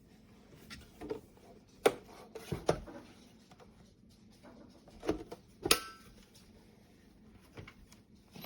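Scattered clicks and knocks from handling the small portable air cooler, the sharpest about two seconds in and again near six seconds.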